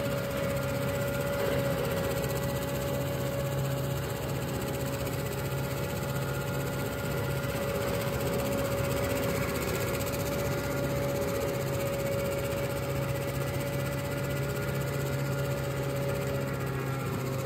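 Ursus C-330 tractor's two-cylinder diesel running steadily under load, driving a PTO flail mower through long grass, with a steady whine held at one pitch throughout.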